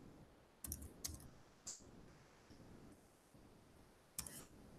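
Faint keystrokes on a computer keyboard as code is typed: a few scattered taps in the first two seconds, a pause, then another short run of keys near the end.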